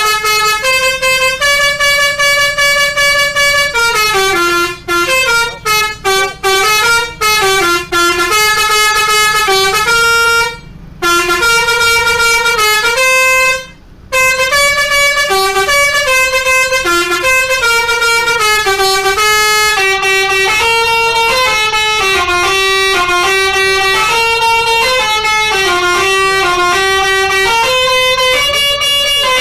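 A bus's Basuri telolet horn, a multi-note musical air horn, playing a tune of held notes that step up and down in pitch. About five seconds in comes a run of short, chopped blasts, and there are two brief breaks around the middle.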